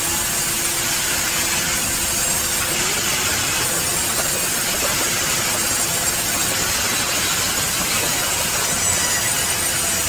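Large vertical band saw running and cutting through a log, a steady, dense cutting noise that does not let up, with the hum of other sawmill machinery under it.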